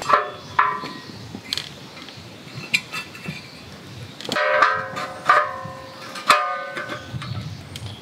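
Background music of plucked-string chords, a banjo-like twang: one chord at the start, then three strums about a second apart in the second half. Between them come light metal clicks and knocks as a steel fire-pit stand is unfolded and set down.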